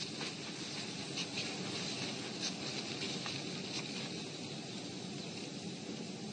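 Steady outdoor background hiss, with a few faint, scattered light ticks in the first four seconds.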